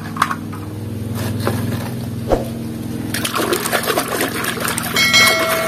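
Hands swishing and scrubbing a small toy bus in a basin of soapy water. A few light knocks at first, then steady sloshing and splashing from about three seconds in.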